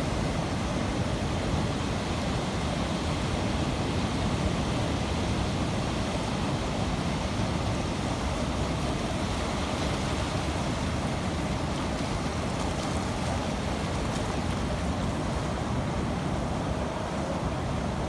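Steady rushing noise of the sea, with wind buffeting the microphone.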